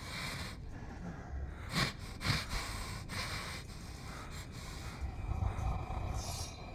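A man breathing heavily, with a few sharp, noisy breaths about two seconds in.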